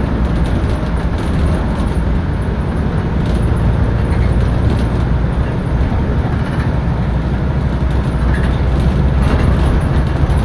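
Inside a 2007 Nissan Diesel Space Runner RP city bus under way: the diesel engine and drivetrain run steadily under a deep, even rumble, with tyre noise from the snow-covered road.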